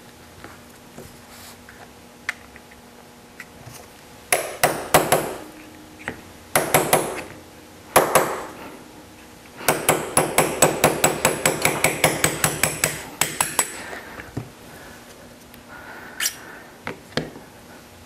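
Small hammer tapping a punch to drive out the roll pin at the back of a Smith & Wesson M&P pistol frame, the pin that holds the sear housing block. A few short groups of light taps come first, then a quick run of about twenty taps at roughly five a second, then a few scattered taps near the end.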